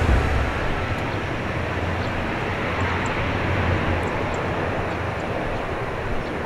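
Airliner engine noise: a steady, even rush that slowly fades.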